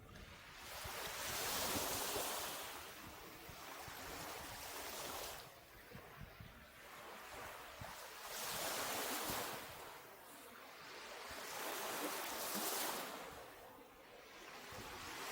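Ocean surf breaking on a beach: a wash of noise that swells and fades about four times, a few seconds apart.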